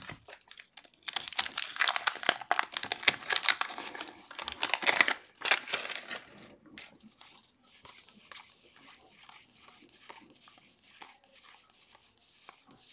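Wax paper wrapper of a 1981 Topps football card pack being torn open and crinkled by hand for about five seconds. After that, quieter soft flicks and slides of cardboard trading cards being thumbed through one by one.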